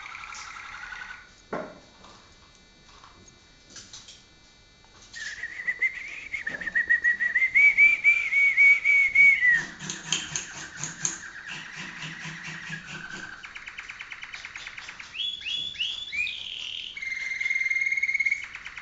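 Malinois (Waterslager) canary singing. After a few quiet seconds it sings a loud, undulating, bubbling warble, then rapid trills, quick upward glides and a held whistle-like note near the end.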